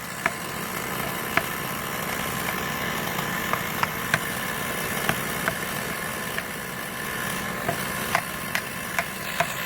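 Engine idling steadily, with sharp clicks now and then.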